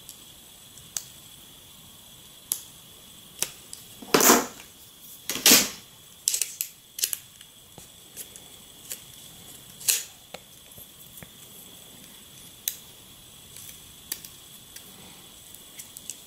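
Light plastic clicks and taps from handling an opened Blackview A8 smartphone as its battery is taken out, with two louder scraping rustles about four and five and a half seconds in.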